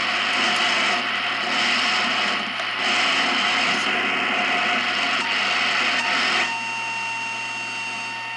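Shortwave receiver hiss on the 11-metre CB band, heard through its speaker. About two-thirds of the way in, the hiss drops and a steady whistle comes in: someone has put an unmodulated carrier on the CB calling channel.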